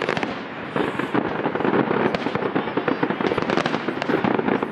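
Fireworks display going off: many quick pops and bangs in close succession, getting busier about a second in.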